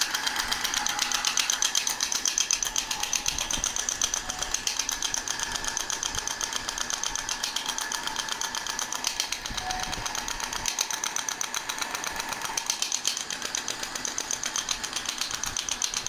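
Radial shockwave therapy handpiece firing a rapid, even train of sharp clicks as it pulses against the skin over the neck and upper back muscles.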